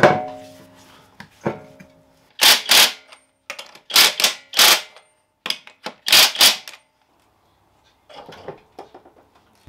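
Cordless impact wrench hammering wheel nuts onto a freshly mounted wheel on a Land Rover Discovery 2, in several short bursts, the longest about half a second. It opens with a single metallic clank that rings briefly, and quieter clatter follows near the end.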